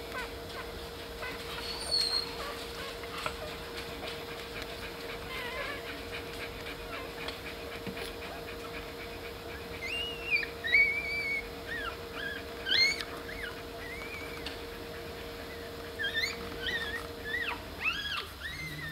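Five-day-old kooikerhondje puppies squeaking and whimpering as they nurse: short, high squeals that rise and fall, scattered at first and coming thick and fast from about halfway and again near the end. A steady low hum runs underneath and stops shortly before the end.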